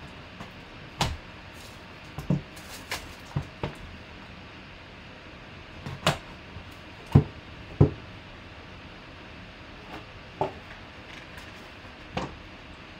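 Cardboard box being cut open and handled: a folding knife slitting the packing tape, with scattered sharp knocks and taps of the cardboard, the two loudest a little past halfway. Near the end a clear plastic puck display case is lifted out of its foam insert.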